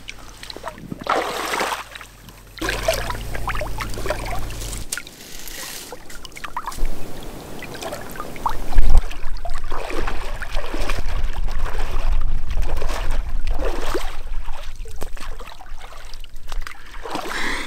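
Lake water splashing and sloshing as a person in a neoprene wetsuit and boots wades in and out, with a low rumble through the second half.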